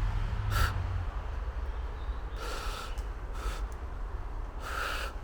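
A person breathing audibly close to the microphone, about five short hissing breaths over a low steady rumble.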